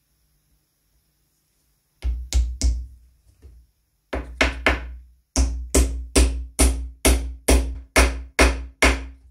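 Hammer tapping a wooden plug into a screw hole in a painted wooden rocking-horse frame. A few blows about two seconds in, another three after a short pause, then a steady run of about nine blows, a little over two a second, each leaving a short ring.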